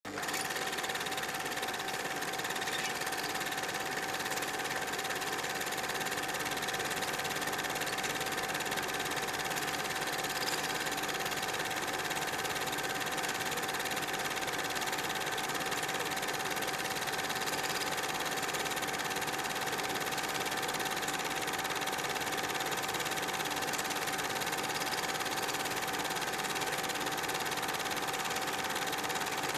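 Super 8mm film projector running: a steady mechanical whir with a constant hum, cutting in suddenly at the start.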